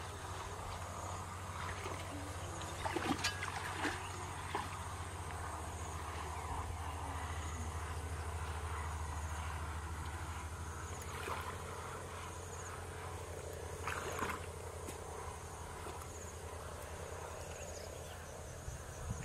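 Outdoor field ambience: a steady low rumble, with a faint high insect chirp repeating every two seconds or so. A few short sharp sounds stand out, about three seconds in and again past the middle.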